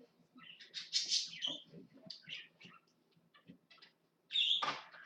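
A small bird chirping repeatedly in short, irregular high-pitched calls, louder about a second in and again near the end.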